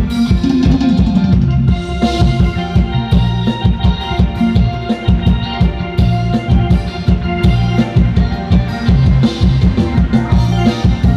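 Music with a steady drum beat and heavy bass, played loud through a PA set: a 300-watt powered mixer driving 15-inch bass cabinets and 15-inch mid-high speaker cabinets.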